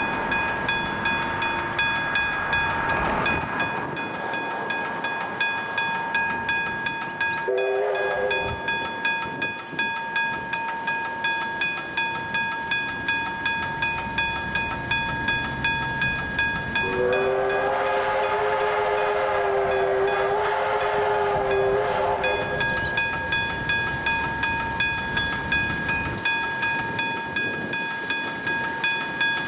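Railway level crossing bell ringing with rapid, even strikes while the crossing lights flash. A train horn sounds a short blast about eight seconds in and a long blast of about five seconds from around seventeen seconds in.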